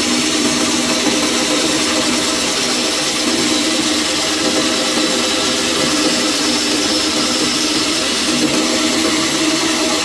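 Bandsaw running with a steady hum while its blade cuts through a small wooden block.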